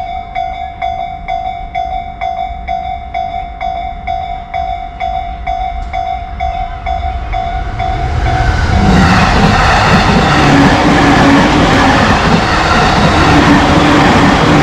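Japanese railroad crossing's electronic warning bell dinging in quick repeats, about two and a half a second. From about eight seconds in, an electric train on the JR Shonan-Shinjuku Line passes over the crossing, much louder, its running noise drowning out the bell.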